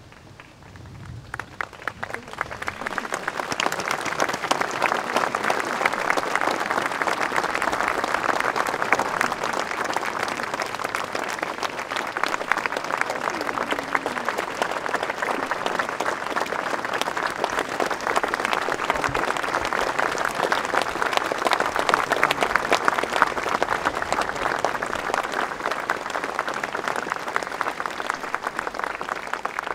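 Large crowd applauding, swelling over the first few seconds and then holding steady.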